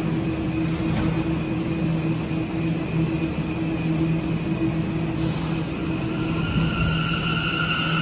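New York City subway train of R179 cars standing at the platform with doors shut, its equipment humming steadily, then starting to pull out: a high electric whine from the propulsion comes in about six seconds in as it begins to move.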